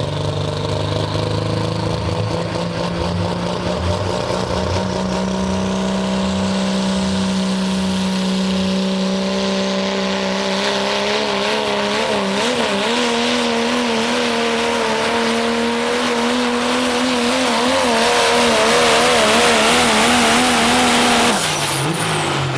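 Dodge Ram diesel pickup pulling the sled at full throttle: a steady heavy engine drone with a high whine rising over the first ten seconds. The engine note then wavers and grows louder, and about 21 seconds in the throttle is cut and the revs drop suddenly.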